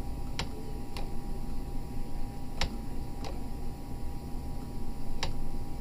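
Computer mouse clicking: about five sharp, separate clicks at uneven intervals over a faint steady hum.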